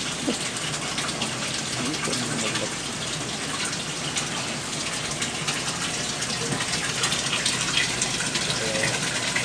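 Water running and splashing steadily, a continuous gush.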